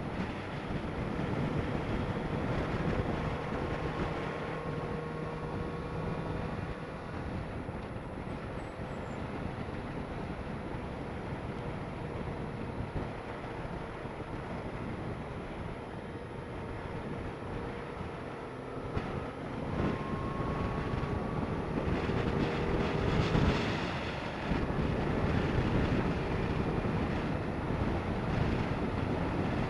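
Yamaha FZ8 motorcycle's inline-four engine running under way, heard with wind rushing over the rider's microphone. The engine note shifts with throttle and gear changes, and it is loudest a little over twenty seconds in.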